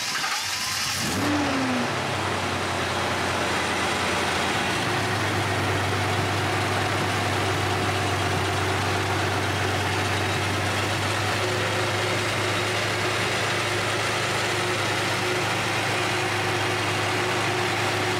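1978 Datsun 280Z's 2.8-litre straight-six catches on its first start with new fuel injectors, flares briefly about a second in, then settles into a steady idle as it warms up.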